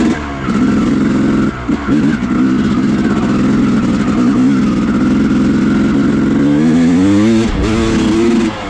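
2000 Yamaha YZ250's single-cylinder two-stroke engine being ridden hard. The throttle is briefly shut a couple of times in the first two seconds. The engine then holds high revs, and near the end the revs swing up and down.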